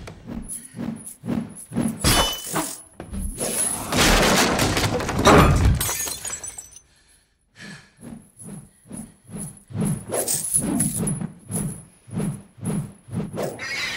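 Film fight sound effects: a run of sharp crashing and breaking impacts, about two a second, with a short lull about seven seconds in.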